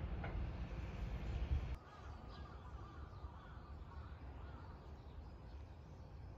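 Outdoor ambience: a low wind rumble on the microphone for the first couple of seconds stops abruptly, followed by a quieter stretch with a few faint bird calls.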